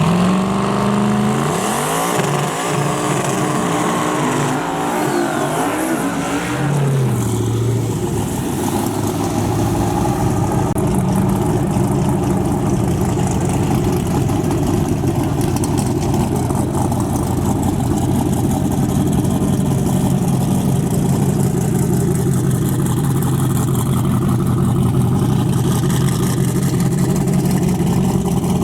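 Drag-race car engine revving up and down several times, then running at a loud, steady low idle.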